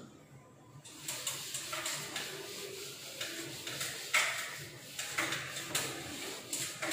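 A cloth wiping a chalkboard: a dry rubbing hiss in a run of back-and-forth strokes, starting about a second in.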